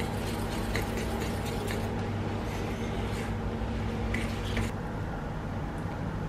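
A metal spoon stirring thick, wet batter in a stainless steel bowl: soft squishing with small scrapes and clinks of spoon on bowl, over a steady low hum. The stirring and the hum stop about four and a half seconds in.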